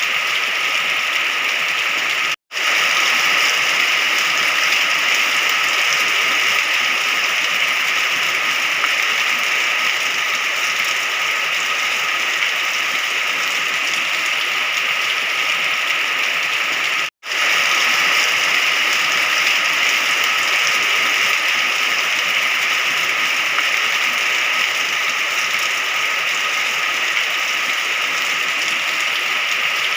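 Steady heavy rain, an even hiss that cuts out for a split second twice, about two seconds in and just past halfway.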